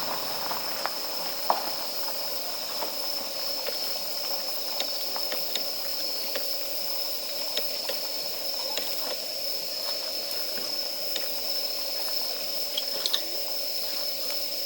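Campfire of damp firewood burning with a steady hiss, and now and then a sharp crackle or pop, typical of moisture boiling out of wet wood.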